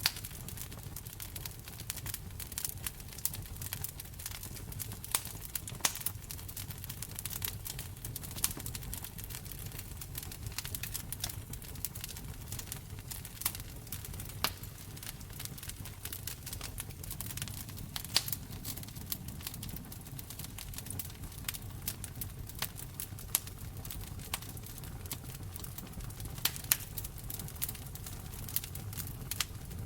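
Wood fire crackling in a fireplace: frequent irregular sharp pops and snaps over a low steady rumble.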